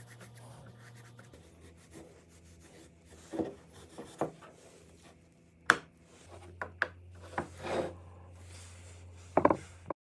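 Pieces of wood being handled: short rubbing and scraping strokes with several sharp wooden clicks and knocks, over a low steady hum.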